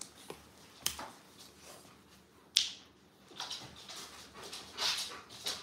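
A golden retriever and a German shepherd crowding in to take treats from a hand. There is a sharp click a little under a second in and a louder one about halfway through, then a run of short hissy noises.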